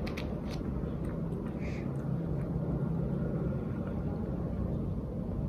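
A steady low rumble with a faint hum, with a few faint clicks about half a second in.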